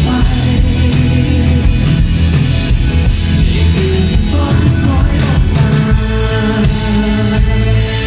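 Live rock band playing: a male lead singer over bass guitar and synthesizer keyboard, with a heavy, steady low end.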